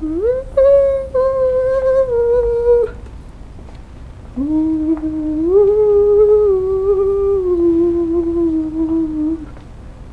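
A person humming a slow tune in two long phrases, with notes held and sliding between pitches and a short pause in the middle.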